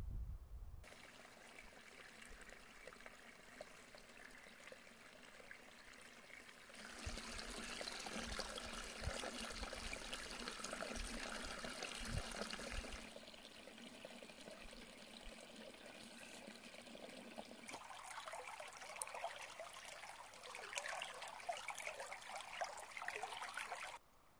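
Small brook trickling and gurgling through grass and moss, in a few short takes; it is loudest between about 7 and 13 seconds in.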